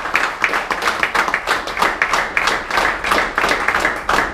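Small audience applauding: many hands clapping together in a quick, dense patter.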